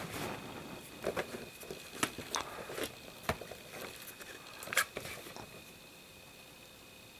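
Handling noise from pistol magazines and holsters being picked up and moved about in an open gun case: a string of light clicks, knocks and rustles that thin out about five seconds in.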